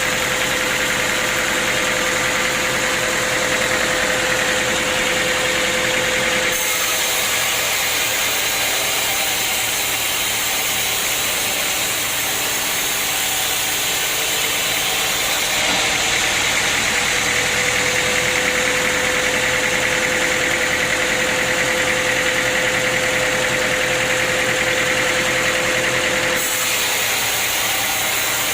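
Sawmill machinery running: a steady mechanical noise with a constant tone through it. The sound changes abruptly about six seconds in, again about halfway, and shortly before the end.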